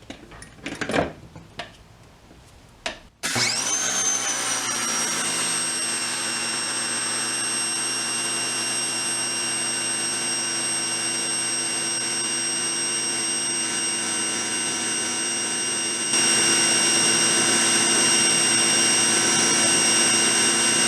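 Ryobi 1600 psi electric pressure washer started up and running steadily with a whine, spraying water from its factory nozzle into a bucket for a flow test. It starts suddenly about three seconds in, its pitch rising briefly as it comes up to speed, and it gets louder a few seconds before the end.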